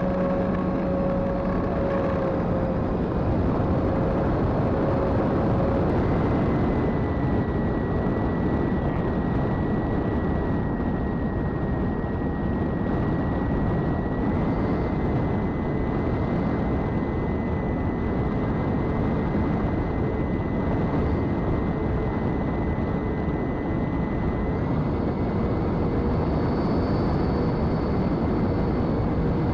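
Eachine Airloader RC plane's twin electric motors and propellers in cruise: a thin, steady whine over heavy wind rush on the onboard microphone. About 25 seconds in, the whine steps slightly higher.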